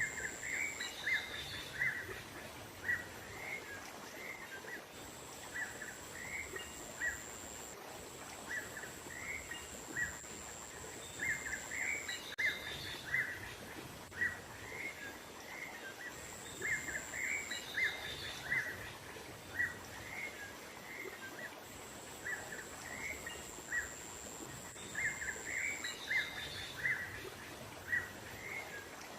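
Small songbirds chirping in a dense run of short, quick calls, a bird-lure (pikat) track meant to draw small wild birds in, with a higher chirping phrase every few seconds. A thin, steady high-pitched buzz runs behind it, breaking off now and then.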